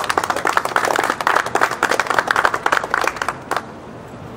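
Applause: many hands clapping at once, which stops about three and a half seconds in.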